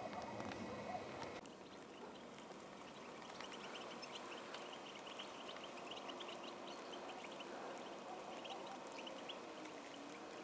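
A flock of European goldfinches twittering: many short, high chirps running on together from about three seconds in.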